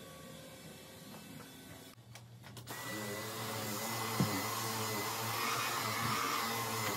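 Faint room hum with a few small clicks, then about two and a half seconds in a Dyson cordless stick vacuum runs steadily on the couch cushions with a high whine; a brief knock about four seconds in.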